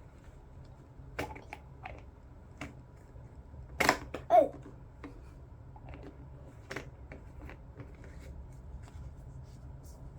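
Scattered clicks and light taps of small plastic kit containers, lids and a spoon being handled on a table, with one sharp click about four seconds in followed by a brief falling squeak.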